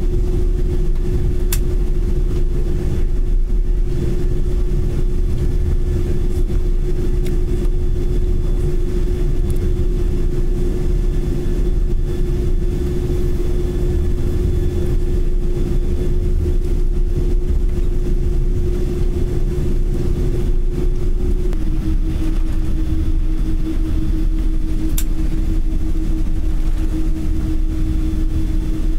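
Airliner cabin noise while taxiing: a steady low engine rumble with one held tone that steps slightly lower about three-quarters of the way through.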